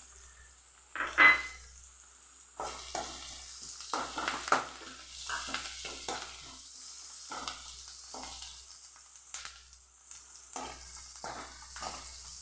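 A steel ladle stirring and scraping sliced onions, green chillies and curry leaves around a kadai as they fry in oil, in irregular strokes over a light steady sizzle, with one louder clank about a second in.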